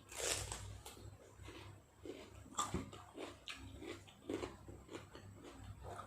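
A person eating close to the microphone: irregular chewing and biting with wet mouth sounds, as a spicy beef salad with raw vegetables is eaten. The sharpest bites come just after the start and about two and a half seconds in.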